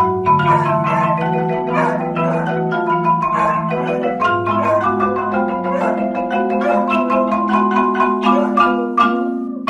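Two marimbas played together: quick struck notes over sustained rolled bass notes, with a beagle puppy howling along.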